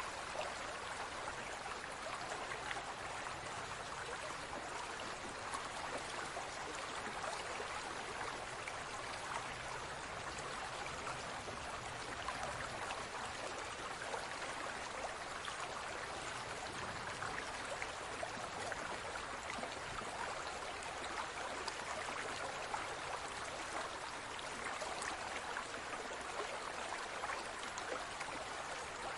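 Water in a large aquarium trickling and bubbling, a steady even rush of water with faint fine ticks of bubbles, unchanging throughout.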